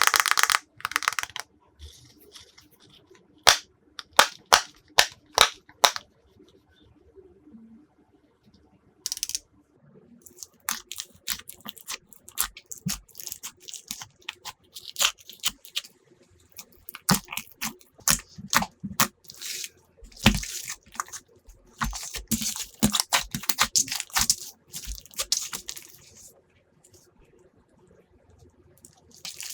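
Glossy slime being pressed, stretched and mixed by hand, making sticky clicks and pops. There is a short crackly burst at the start, then a slow run of single clicks, then dense crackling and popping through most of the rest.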